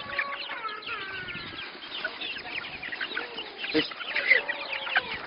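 Chickens clucking, many short calls in quick succession.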